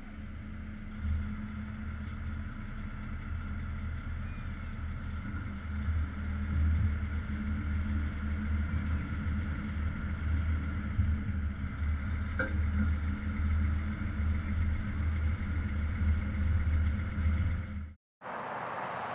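Volvo FH16 truck's straight-six diesel engine running steadily, a deep low drone heard close up from the trailer, with a single light click partway through. Near the end it cuts off abruptly and gives way to a steady outdoor hiss.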